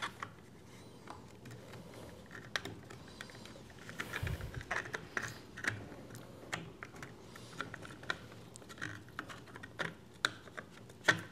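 Irregular light clicks and taps of a circuit board and printed plastic parts being handled as the Prusa i3 MK3 LCD board is worked back and forth into its 3D-printed plastic housing, thickest near the middle.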